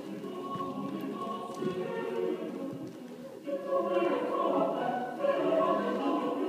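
Choral music: many voices singing long sustained notes, growing louder about three and a half seconds in.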